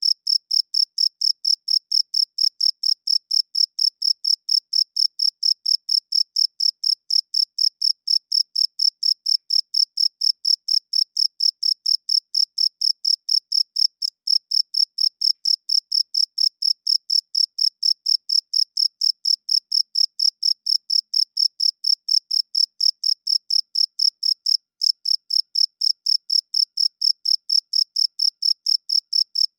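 Cricket chirping in a steady, fast rhythm of about three to four high-pitched chirps a second.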